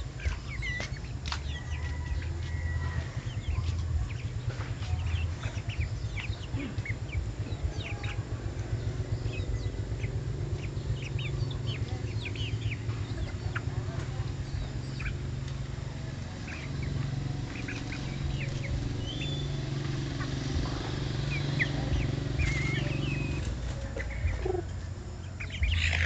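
A flock of free-ranging chickens foraging, with a busy stream of short high chirps and peeps throughout over a steady low rumble.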